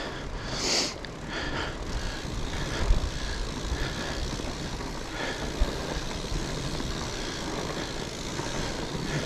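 Fat bike rolling along a forest trail: steady rumble of the wide tires over the ground with wind on the microphone, and two sharp bumps about three and five and a half seconds in.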